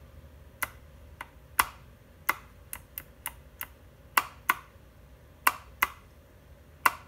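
A series of sharp, dry clicks, about a dozen at uneven spacing, some in quick pairs, over a faint room hum.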